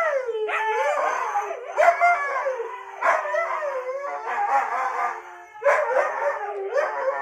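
Several huskies howling together, their overlapping howls gliding up and down in pitch while one holds a long, steadier note. The howling dips briefly about five and a half seconds in, then starts up again.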